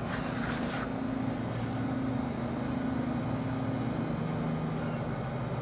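Steady low drone of running machinery, an engine or motor with a few held low tones, with faint rustling from handling a compressor air-filter element in the first second.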